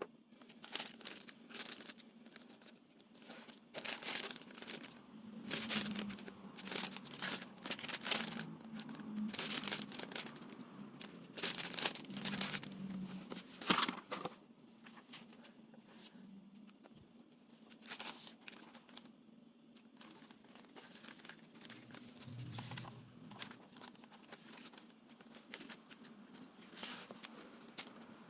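Plastic packaging of a model kit being handled, with bags crinkling and tearing open in irregular bursts. The rustling is busiest in the first half and lighter and sparser later, over a faint steady low hum.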